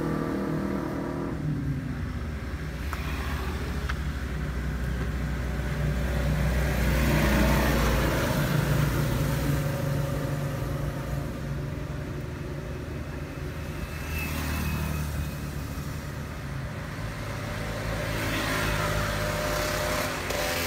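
Road traffic: a vehicle engine running steadily, with passing vehicles swelling louder about seven seconds in and again near the end.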